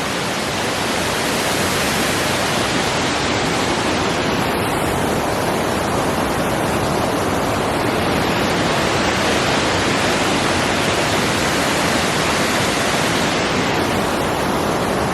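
A waterfall's steady rush of falling water, heard up close.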